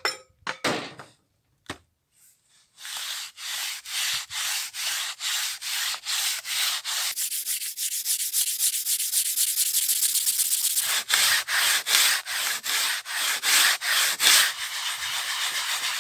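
Gloved hand scrubbing the rusted steel blade of a crosscut saw with wet pit sand to scour off the rust: a gritty rubbing in regular back-and-forth strokes, about two to three a second. A few brief knocks come first, and near the end the strokes run together into faster, steadier scrubbing.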